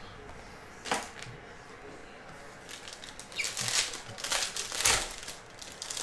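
Foil trading-card pack wrapper being handled and torn open by hand: a single tap about a second in, then a run of crinkling rustles, the loudest near the end.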